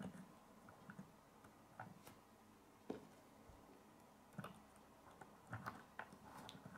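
Faint, irregular clicks of plastic K'nex pieces being handled and pushed into place.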